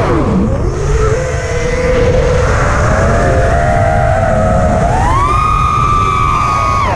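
Brushless motors of an Armattan Rooster FPV racing quadcopter whining, heard from its onboard camera. The pitch dives sharply just after the start, wavers lower through the middle, climbs steeply about five seconds in to a high steady whine, and dips again at the end. Wind rumbles on the microphone underneath.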